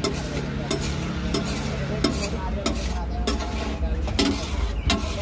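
Metal spatula scraping and stirring pav bhaji mash across a large flat iron tawa, in regular strokes about every two-thirds of a second, with the hot bhaji sizzling.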